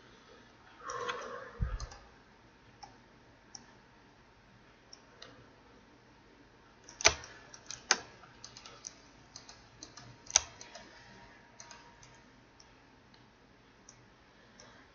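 Scattered clicks of a computer keyboard and mouse as shortcuts are keyed in, with a few sharper key strikes about seven, eight and ten seconds in. A brief low thump comes near the start.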